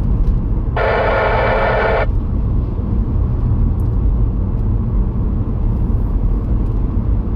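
Car driving at about 30 mph with a steady low road and engine rumble. About a second in, a buzzy tone sounds for just over a second, then stops.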